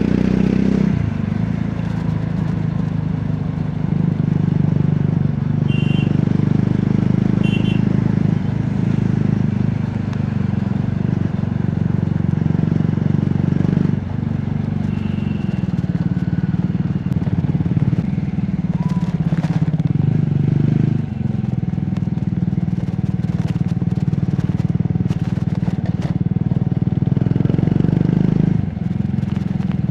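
Triumph Scrambler 400X's single-cylinder engine and exhaust running steadily while riding, its note dipping briefly three times as the throttle eases off. A few short high beeps sound faintly about six and eight seconds in.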